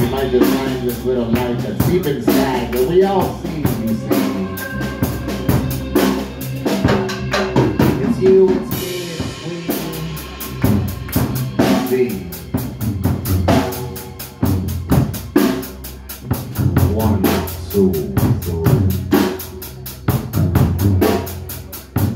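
Live band music: a drum kit playing a busy, steady beat with bass drum and snare over keyboard synthesizer, with a short whooshing swell about nine seconds in.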